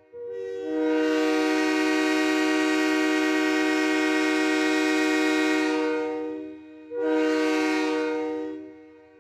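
Train horn sounding a chord of several notes at once: one long blast of about six seconds that swells to full strength just after it starts, then a shorter blast of about a second and a half, each fading out at the end.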